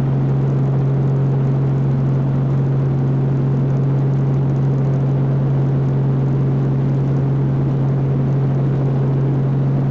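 Robinson R44 helicopter heard from inside the cabin, its six-cylinder piston engine and rotors running with a loud, steady drone and an unchanging low hum.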